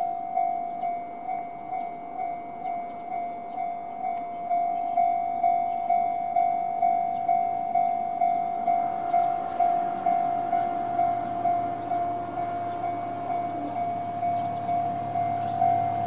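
Electronic level-crossing warning bell of the JR East Tohoku type, ringing a steady repeating ding about twice a second. From about halfway, the low rumble of an approaching diesel railcar grows in underneath.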